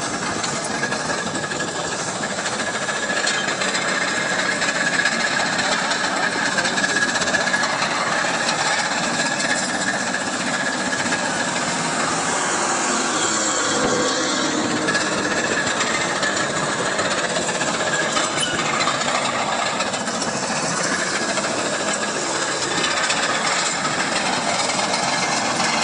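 Crawler bulldozer driving, its diesel engine running under load with the clanking rattle of its steel tracks.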